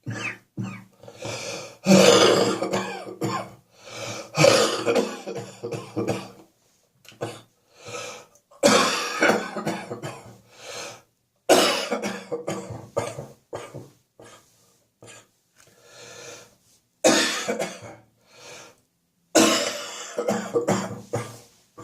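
Repeated fits of coughing, each a run of several coughs in quick succession, with short pauses between the fits.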